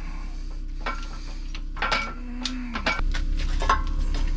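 Light metal clinks and knocks as an aluminum upper control arm and steel adapter cups are handled and set in place on a hydraulic press. A low steady hum starts about three seconds in.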